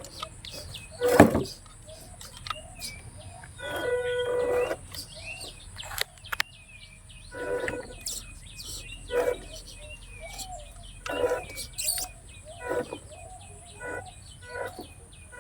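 Many small birds chirping, with repeated short louder pitched calls among them and a steady high hiss. A sharp knock about a second in is the loudest sound.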